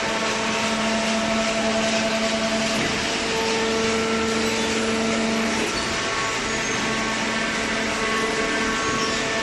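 Hydraulic baler's power unit running: a steady mechanical noise with a hum and whine whose tones shift about three and six seconds in.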